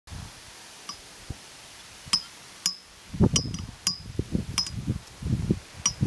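Wind buffets the microphone with an uneven low rumble from about three seconds in. Over it come about seven short, sharp, high chinking bird calls at irregular intervals.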